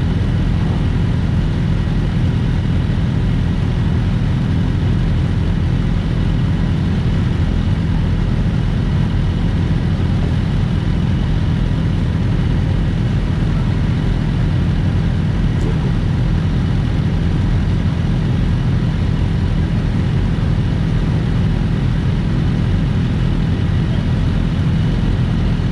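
Several sportbike engines idling steadily together, a constant low hum with no revving.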